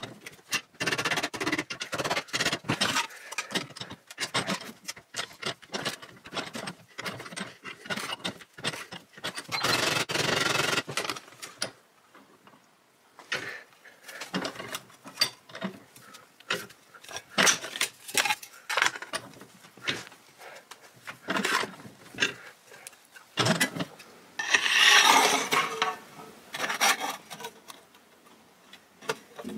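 Thin sheet metal being bent and worked by hand in a steel bench vise: irregular clanks, taps and rattles of the sheet against the vise jaws, with stretches of metal scraping and rubbing, the loudest scraping about three-quarters of the way through.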